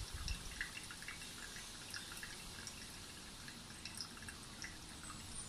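Thin stream of hot water from a kettle pouring slowly onto coffee grounds in a wooden pour-over dripper: a faint trickle with many small scattered drips.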